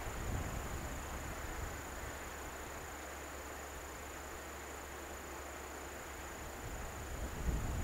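Outdoor ambience: wind rumbling on the microphone at the start and again near the end, calmer in between, over a steady hiss and a steady high insect trill.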